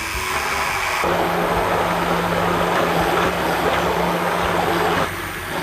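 Hand-held immersion blender running in a tall plastic beaker, puréeing cooked chickpeas with water and oil into a thick cream. The motor hum grows louder and denser about a second in, then briefly drops off near the end.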